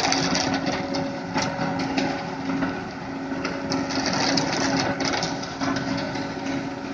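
Hino concrete mixer truck running: a steady engine hum under rough, dense mechanical noise with scattered clicks and knocks.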